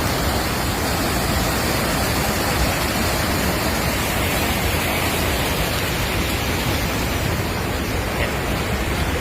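Fast-flowing floodwater rushing, a loud, steady noise with no breaks.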